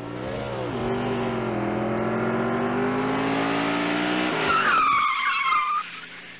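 Car sound effect: an engine revving up and holding a steady note, then tyres screeching for about a second near the end, the squeal falling in pitch.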